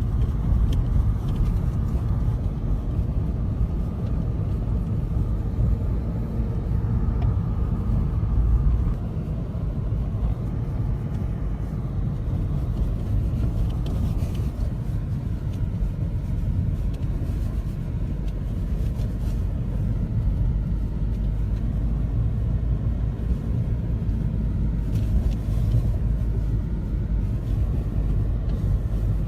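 Car driving, heard as a steady low road and engine rumble.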